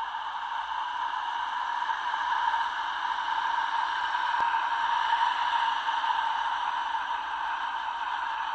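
Steady, even hiss-like noise, something like wind or static, with a single faint click about four seconds in.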